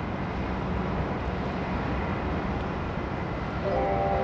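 An engine running steadily, a low drone with no change in pace. Music comes in near the end.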